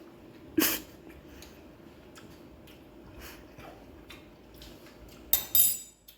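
Sounds of someone tasting chili from a spoon: a short sharp noise about half a second in, faint mouth and spoon sounds, and a louder clatter with a metallic ring near the end.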